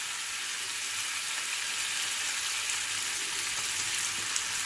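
Chicken, peppers and tomato sizzling steadily in olive oil in a paella pan on a gas flame that has just been turned down a little.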